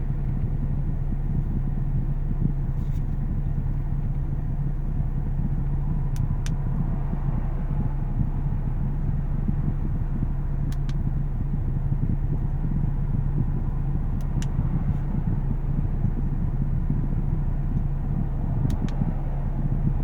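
Steady low hum and rumble, with a few faint sharp clicks from GoPro Hero 5 buttons being pressed, some of them in quick pairs.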